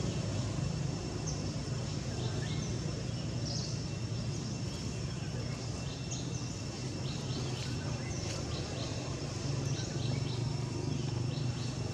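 Outdoor ambience: a steady low rumble under scattered short high chirps and a faint, steady, high insect whine.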